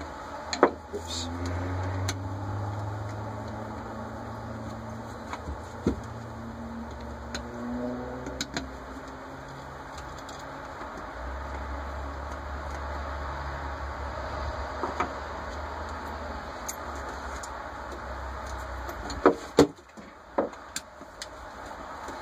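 Sharp metal clicks and clinks of a screwdriver and small parts on a Rochester Quadrajet carburetor body being taken apart, a few scattered ones with the loudest near the start and a cluster about three quarters in, over a low steady hum that drops in pitch about halfway.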